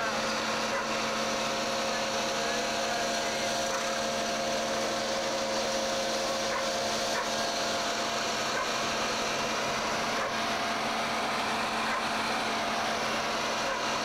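Heavy pile-driving machinery running steadily: an even mechanical drone with a constant whine over it, with no hammer blows.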